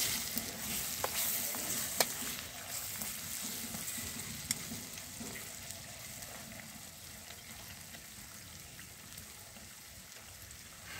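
Chicken pieces in a thick curry gravy sizzling and frying in a pan while a spatula stirs them, with a few sharp clicks of the spatula against the pan in the first few seconds. The sizzling gradually dies down.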